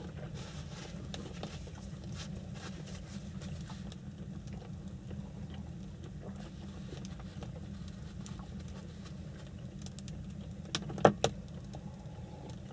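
Small tableware sounds during a meal at a wooden table: faint clicks and light handling noise, with two sharp knocks close together near the end. A steady low hum runs underneath.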